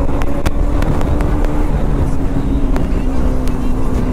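Single-cylinder sport motorcycle engine running at a steady pitch under way, with wind rushing over the microphone.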